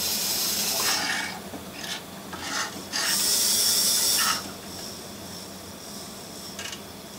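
A Hornby OO gauge LMS 0-6-0 model locomotive running along the track under power, its small electric motor and gears giving a rasping whir with a high whine. It is louder in two stretches, then runs more quietly from about four seconds in as it reverses. It is being tested after being sold as a non-runner and runs, though slower in one direction.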